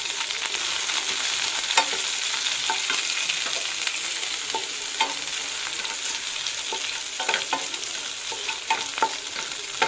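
Chopped onion, green chillies and curry leaves sizzling in hot oil in a pan, stirred with a wooden spatula that scrapes and knocks against the pan now and then. The frying is a steady hiss throughout.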